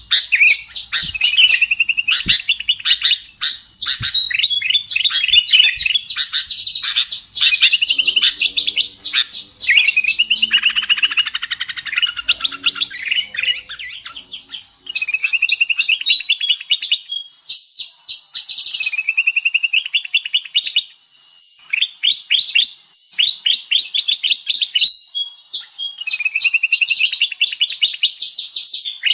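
Bird-lure (pikat) recording of small birds chirping in rapid runs of short, sweeping high notes, broken by brief pauses between phrases. It is offered as sooty-headed bulbul (kutilang) calls. A lower, rougher call joins for a few seconds near the middle.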